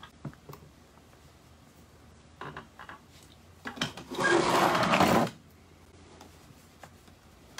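Wooden chair legs scraping across a concrete floor for about a second as the chair is turned, after a few soft rustles of fabric and batting.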